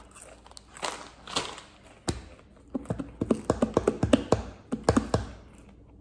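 Crunching as a potato chip is chewed, then hands drumming rapidly on a tabletop, about five or six taps a second, for a couple of seconds from about halfway through.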